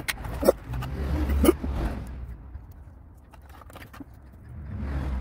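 Clicks, scrapes and two louder snaps, about half a second and a second and a half in, from a hand tool working the plastic hose clips and connectors on the N80 evap purge valve in a Mk5 Golf GTI's engine bay.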